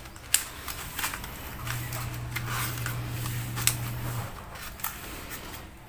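Cardboard pattern being slid and shifted over a plastic honeycomb mesh grille sheet: light rustling and scattered small clicks. A low steady hum sounds for a couple of seconds in the middle.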